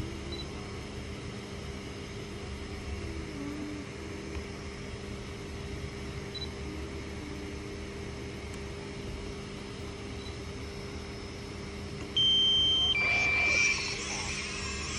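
A low steady hum. About twelve seconds in come two loud electronic beeps, a higher tone and then a slightly longer lower one, with a noisy whir starting under the second.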